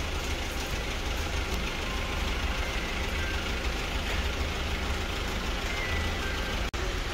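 A vehicle engine idling steadily under a constant hiss, broken by a brief gap near the end.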